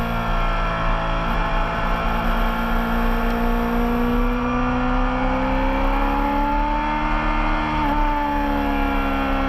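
Racing motorcycle engine heard from an onboard camera at speed. The engine note climbs slowly over several seconds, dips briefly about eight seconds in, then holds steady.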